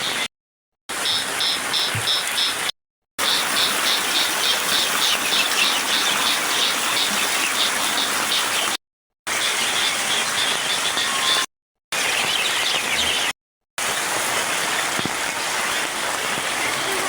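Heavy rain falling as a steady, dense hiss, cutting out briefly to silence four times. Through the first half a rhythmic high-pitched chirping, about three or four a second, sounds over the rain.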